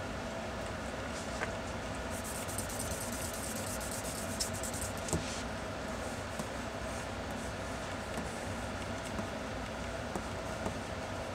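Mechanical pencil scratching on paper in quick sketching strokes, most audible for a few seconds near the start, over a steady low room hum with a faint held tone.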